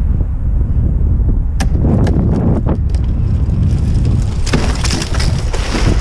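Wind buffeting a head-mounted microphone, a steady low rumble, with a few sharp clicks about two seconds in and a brighter rustling hiss near the end.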